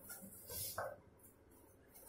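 Hands kneading gram-flour dough in a steel bowl: a few soft, faint squishing and pressing sounds, the loudest between about half a second and a second in.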